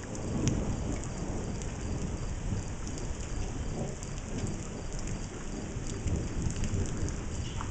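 Rain from a thunderstorm falling steadily, with scattered raindrop ticks over a low, uneven rumble.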